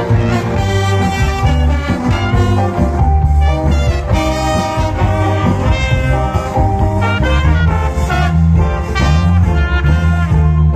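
Loud cha-cha dance music with brass horns over a heavy, steady bass line, played through a big sound system.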